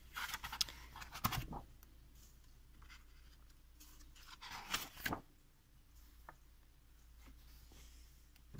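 Pages of a large illustrated book being turned by hand: paper rustling and sliding in short bursts in the first second or so and again around five seconds in.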